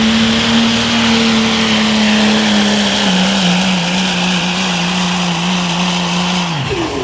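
Dodge Ram Cummins turbo-diesel pickup pulling a sled at full throttle: the engine holds a high, steady drone with turbo and exhaust hiss, sags slightly about three seconds in as the sled bogs it down, then the revs fall away sharply near the end as the throttle is lifted at the end of the pull.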